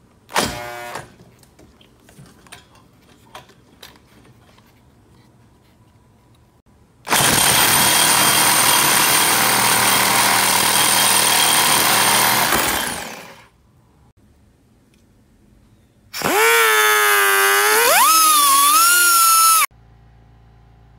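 Reciprocating saw cutting through a metal pipe. A short burst about half a second in, then a long stretch of the blade cutting from about 7 s that winds down around 13 s, and a second run from about 16 s whose whine wavers and rises in pitch before cutting off suddenly near the end.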